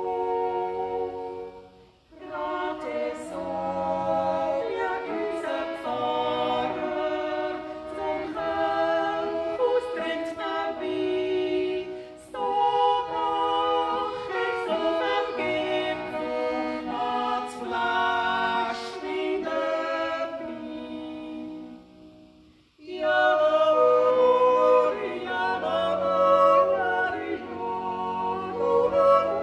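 Swiss yodel song sung as a duet by two women in close harmony, accompanied by a piano accordion holding bass notes beneath. The music drops out briefly about two seconds in and again about three-quarters of the way through, between phrases.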